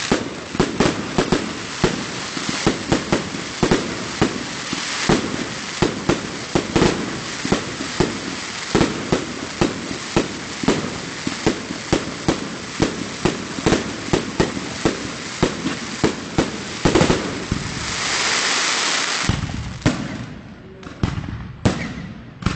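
Fireworks display: a fast, steady string of aerial shell bursts banging two or three times a second. Near the end a loud hiss lasts about a second and a half, and then the bangs thin out.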